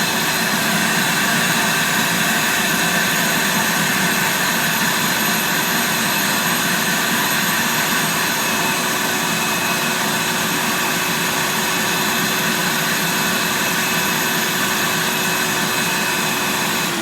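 Vacuum cleaner running steadily with a high whine, vacuuming carpet after a drill-brush scrub.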